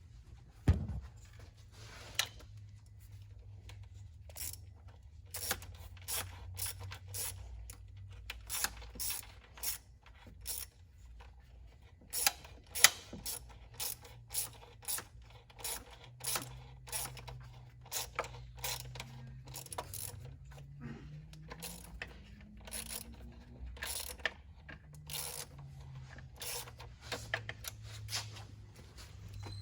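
Hand tool clicking irregularly, like a ratchet being worked, with a low steady hum underneath.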